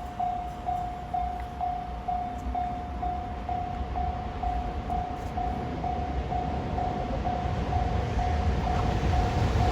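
Level crossing warning bell ringing about twice a second with one repeated tone. The rumble of an approaching train, an EF510 electric locomotive hauling a delivery train, grows louder under it toward the end.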